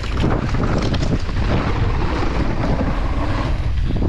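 Mountain bike rolling fast down a dirt and gravel trail: a steady rumble of tyres on loose ground, with many small knocks and rattles from the bike, under heavy wind noise on the microphone.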